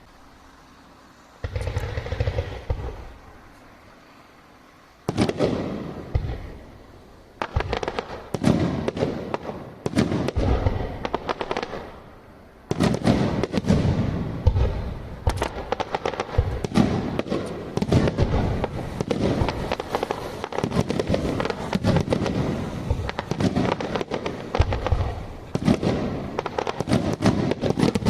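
Japanese aerial fireworks bursting: two single booms in the first few seconds, then from about a quarter of the way in a rapid, continuous run of booms with many sharp cracks.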